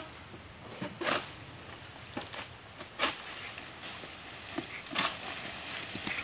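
Pole-mounted harvesting sickle (egrek) pulled against an oil palm frond stalk: short rasping cutting strokes about every two seconds, with the rustle of the cut frond coming down near the end.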